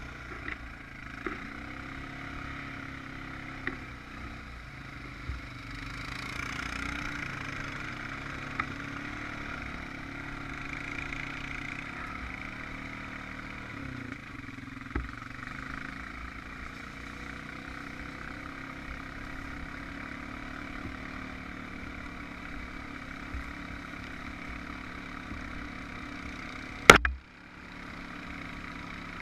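Honda Rancher 420 ATV's single-cylinder engine running at a fairly steady pace, with a few small clicks and one loud sharp knock near the end.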